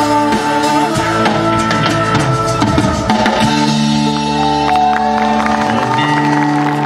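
Live band music with a drum kit playing under sustained held notes, bass drum and snare hits keeping the beat.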